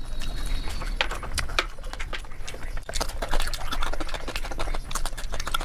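Close-miked mukbang eating sounds: chewing and mouth smacks, a dense run of sharp clicks that is thickest about three to five seconds in.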